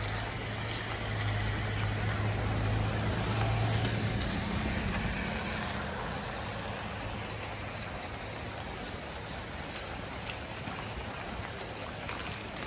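A motor vehicle's engine hums steadily for the first four seconds or so, then fades, over a steady hiss of light rain on a wet street. A few light ticks, likely raindrops hitting an umbrella, are scattered throughout.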